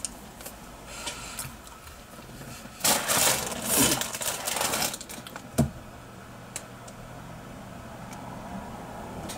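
Fabric rustling close against the microphone for about two seconds as a hooded top brushes it, then a single sharp knock; the rest is quiet with a few faint clicks over a low steady hum.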